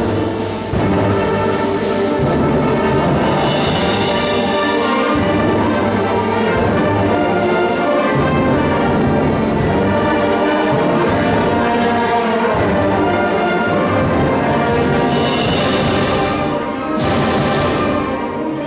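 School concert band playing a full wind band passage: brass, woodwinds and timpani together. The sound brightens sharply about four seconds in and again near the end.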